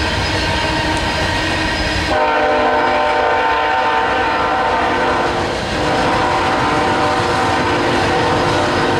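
Loaded coal train's hopper cars rolling past with a steady rumble and clatter of wheels on rail. About two seconds in, a locomotive horn starts sounding and holds, with a short break a few seconds later before it sounds again.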